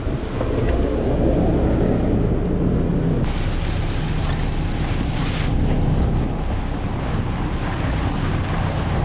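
Strong blizzard wind rushing over the microphone, a steady loud noise with a low rumble underneath.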